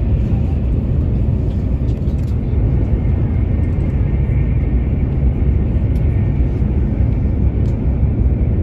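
Steady low rumble of an Iryo Frecciarossa 1000 high-speed train running at speed, heard inside the passenger car. A faint higher hiss comes in for a few seconds in the middle, and there are a couple of light clicks.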